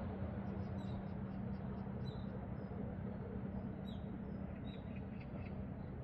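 Small birds giving short high chirps, about four times, over a steady low background noise.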